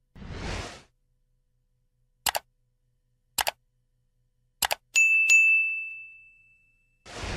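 Subscribe-button animation sound effects: a whoosh, then three sharp mouse-click sounds about a second apart, then a notification-bell ding that rings out for about two seconds, and a second whoosh near the end.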